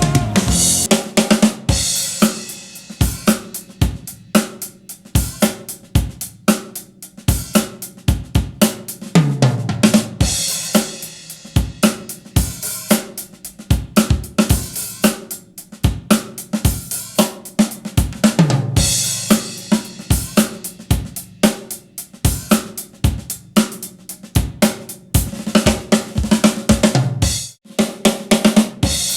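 Drum kit test track (kick, snare, hi-hat and cymbals) played back through a compact Genelec studio monitor and picked up by a microphone. It keeps a steady beat, with a low falling boom about nine seconds in and again near nineteen seconds.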